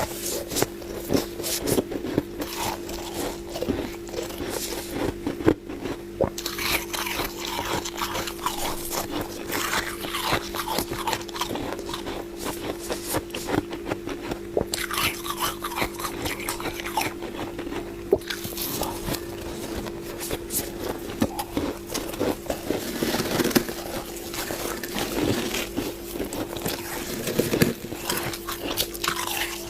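Freezer frost being scraped and bitten, with many irregular crisp crunches and scrapes over a steady low hum.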